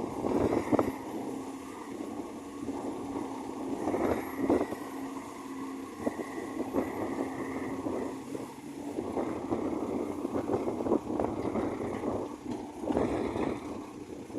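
Excavator working: its diesel engine runs under load with a steady drone and a high whine that rises and fades, broken by several sharp knocks and thuds.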